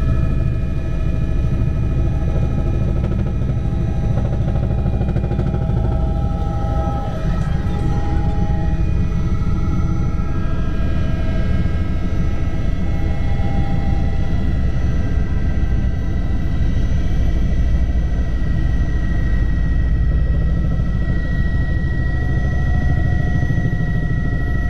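Helicopter in flight heard from inside the cabin: loud, steady low rotor noise with a steady high whine over it.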